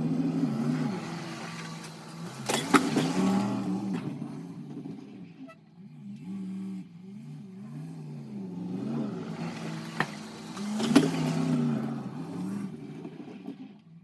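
Plow truck's engine revving up and down as the truck takes runs at a deep snow drift to break through it, with two loud thumps, about three seconds in and near eleven seconds.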